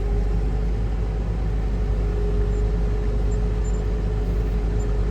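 Case IH Puma tractor running steadily under way, heard from inside the cab: a constant low engine drone with a steady mid-pitched whine over it.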